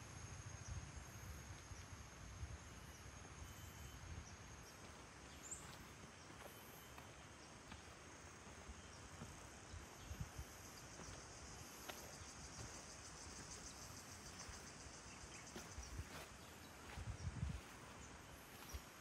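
Faint outdoor ambience of insects buzzing steadily at a high pitch, their pulsing chorus growing fuller in the middle. A brief low rumble on the microphone comes near the end.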